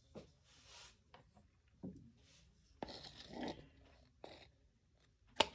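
Clear plastic paint cups being handled: scattered scraping and rubbing with a few soft knocks, and one sharp click near the end.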